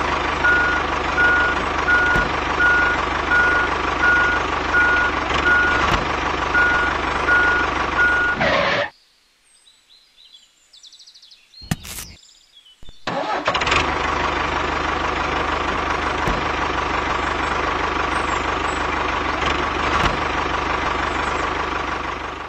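Tractor engine running steadily, with a regular beeping over the first eight seconds or so. It cuts out about nine seconds in, there is a single click near twelve seconds, and the engine resumes about thirteen seconds in and runs on steadily.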